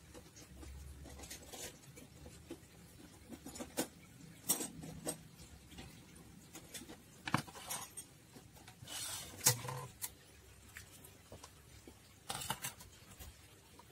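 Small plastic parts handled by hand: scattered light clicks, taps and rustles, with a few sharper knocks.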